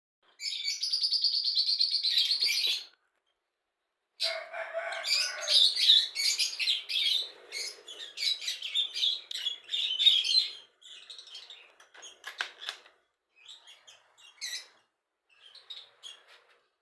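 Caged lovebirds chattering: a rapid, shrill trill for about two and a half seconds, a short break, then a dense run of overlapping chirps that thins out to scattered calls over the second half.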